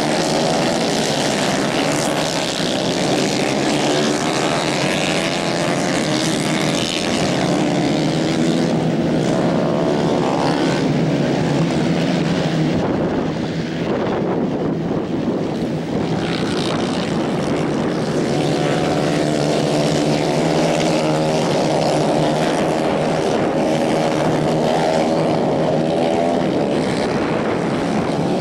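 A pack of 150 cc racing karts running hard, several small engines overlapping and wavering up and down in pitch as they accelerate and lift through the corners.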